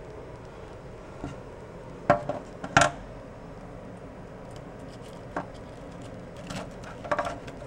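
A few sharp clicks and scrapes of a hand or tool picking debris out of a dishwasher's clogged drain sump, the loudest two about two and three seconds in.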